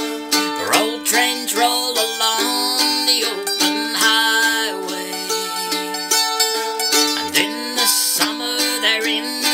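Mandolin strummed with a pick, playing a steady instrumental break between sung verses of a song.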